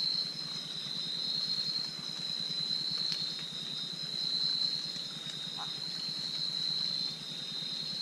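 Nocturnal insect chorus: a steady, unbroken high-pitched trill, with a low, rapid pulsing underneath.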